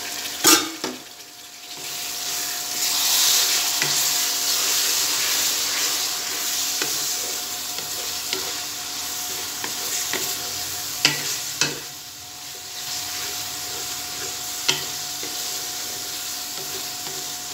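Chopped tomatoes sizzling in hot oil and masala in an aluminium kadai, stirred with a wooden spatula; the sizzle swells a couple of seconds in. A few sharp knocks of the spatula against the pan.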